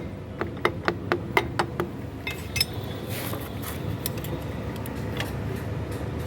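Light metal taps, about four a second, stopping about two seconds in, then a few scattered clinks and a brief metallic ring: a new oil seal being tapped into a scooter's gearbox cover.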